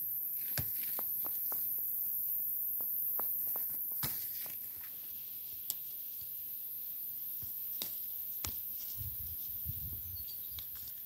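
Green plums being picked by hand off a tree: leaves rustling and a dozen or so scattered sharp clicks and snaps from stems and handling.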